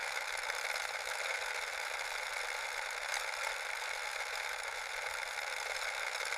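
A small motor running steadily, with a thin sound that has no low end.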